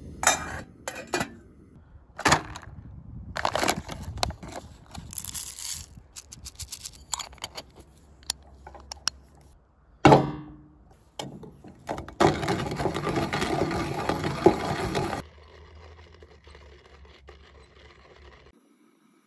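Stainless-steel hand coffee grinder being handled and used: clicks and metal clinks as its lid comes off and beans go in, a sharp clink about ten seconds in, then about three seconds of steady crunching as the beans are ground.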